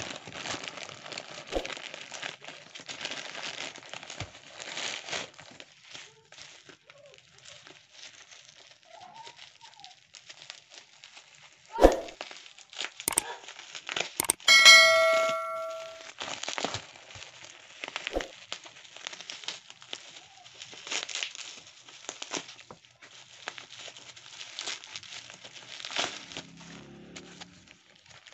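Plastic courier mailer and packaging crinkling and tearing as a parcel is unwrapped by hand. A sharp knock comes about twelve seconds in, and a short bell-like chime about two seconds later.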